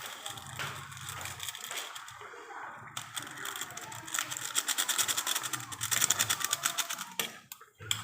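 A rapid, even run of sharp clicks or taps, about ten a second, loudest in the second half and stopping just before the end, over a low steady hum.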